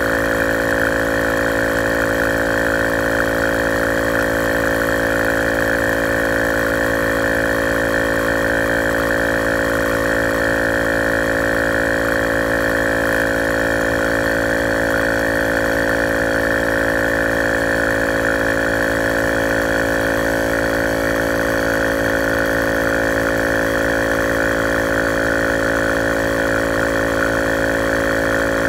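Bergmann Typhoon digital tyre inflator's 12 V compressor running steadily as it pumps up a tyre, the pressure climbing from about 23 to 28 psi on its way to a 32 psi auto cut-off.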